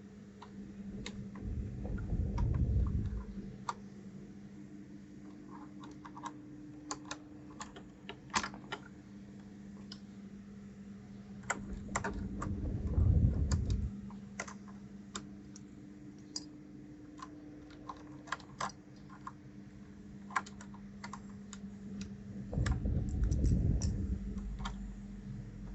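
Keys of a 1STPLAYER DK5.0 mechanical keyboard being typed on in irregular clicks, fitted with new Gundam-style keycaps. A low rumble swells up and fades three times, about ten seconds apart, over a steady low hum.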